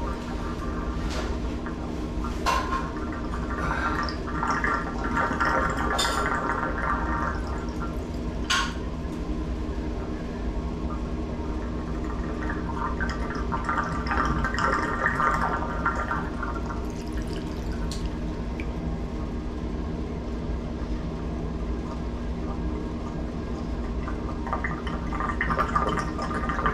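Water running steadily through plumbing, swelling twice, with a few sharp metallic clicks of handling at the shower valve.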